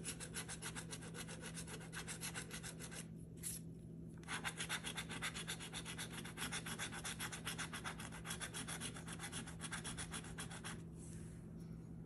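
A coin scraping the scratch-off coating from a paper lottery ticket in rapid back-and-forth strokes, several a second. The scraping pauses briefly about three seconds in and stops about a second before the end.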